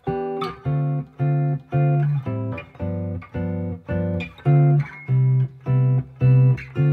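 Semi-hollow-body electric guitar through an amp comping a ii–V–I in C with short chord stabs, about two a second. Each target chord is approached from the chord a step above on beat 4: E minor 7 into D minor 7, A minor 7 into G7, D minor 7 into C major 7.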